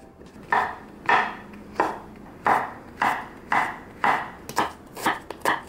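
Chef's knife cutting potato and then mushrooms on a wooden cutting board, with sharp strikes at about two a second that turn into quicker, closer cuts near the end.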